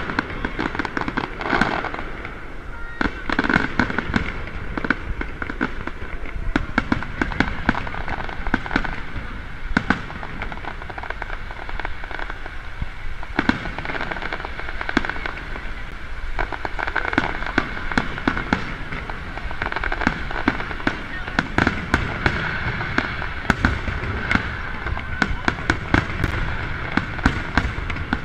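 Aerial firework shells bursting overhead, many sharp bangs and pops in quick succession, with crowd voices underneath.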